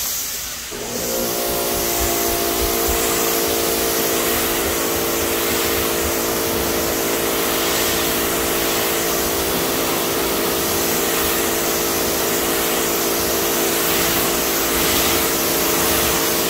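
Pressure washer rinsing a car, its jet of water hissing steadily against the paint. The washer's motor hums steadily under the spray, setting in about a second in.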